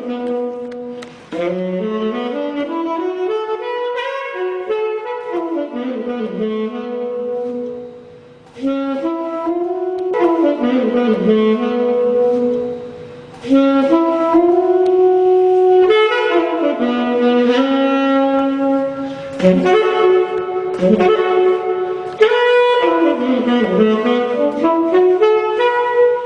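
A saxophone played solo: a single melody line of held notes and runs up and down, in phrases broken by short pauses about a second in, near eight seconds and near thirteen seconds.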